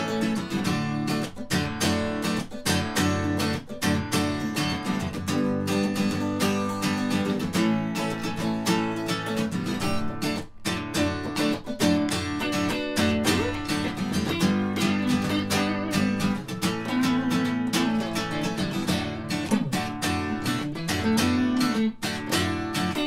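Acoustic guitar strummed in a steady rhythm with an electric guitar playing along: an instrumental stretch of a live song, with no singing.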